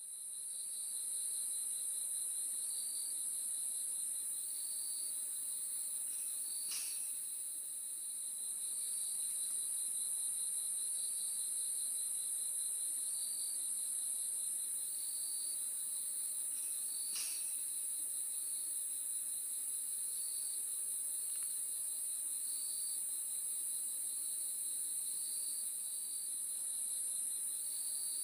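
Crickets chirping steadily: a continuous high trill, with a lower chirp that recurs about every two seconds. Two brief clicks come about ten seconds apart.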